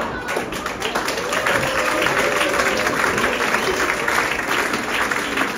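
Audience applauding: a steady round of many hands clapping after a joke's punchline.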